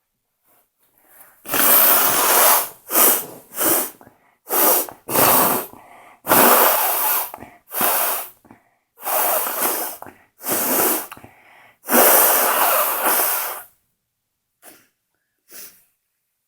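A person sneezing over and over in a fit, with noisy breaths between the sneezes. The bursts stop a little past three-quarters of the way through, followed by two faint short sounds.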